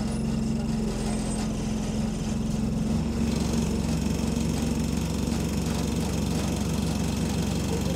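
Single-decker bus's diesel engine idling, heard from inside the bus, with a shaking, rattling vibration that the uploader puts down to parts shaking on the engine. The engine note changes about three seconds in.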